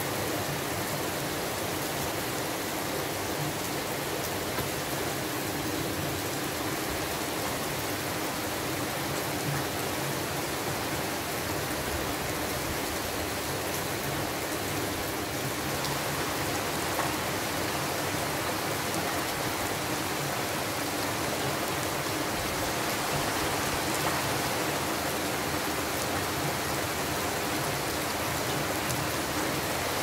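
Heavy rain beating down, a steady, even hiss of downpour that holds at the same level throughout.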